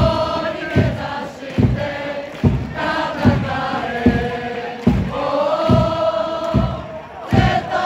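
Football supporters singing a chant in unison, backed by a drum beaten steadily about once every 0.8 seconds.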